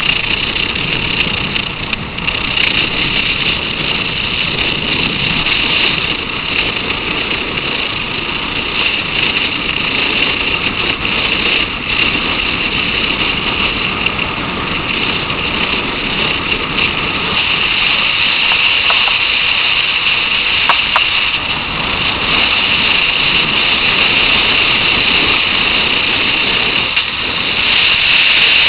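Motorcycle being ridden along a highway: a steady rush of wind and road noise with the engine underneath, getting louder near the end.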